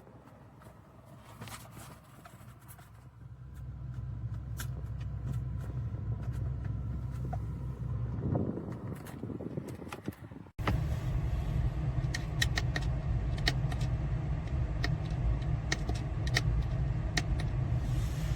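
Road vehicle on the move: a steady low rumble with scattered small clicks and ticks, cutting off abruptly about ten seconds in and resuming louder.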